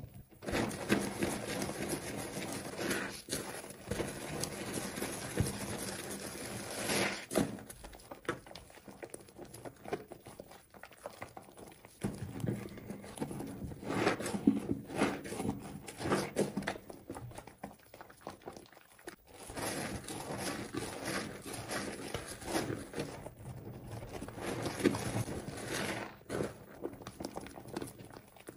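Hands squeezing and lathering a soaked, mushy bar of soap in thick foam: wet squelching and the fine crackle of popping bubbles. It comes in stretches of a few seconds with short quieter lulls between.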